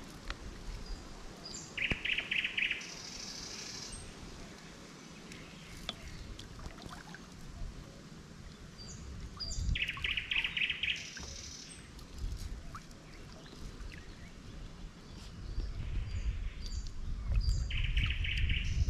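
Songbirds singing from the riverbank vegetation, with a dense trilled phrase repeated about every eight seconds and shorter calls between. A low rumble builds near the end.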